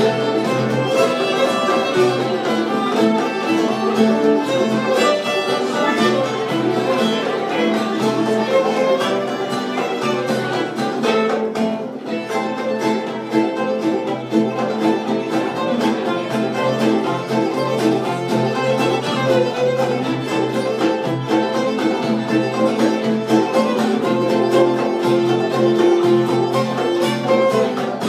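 Bluegrass string band playing live, the fiddle out front over banjo, mandolin and guitar.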